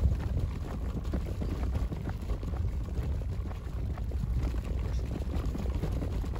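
Stroller wheels rolling over rough asphalt: a steady low rumble with many small irregular rattles and knocks.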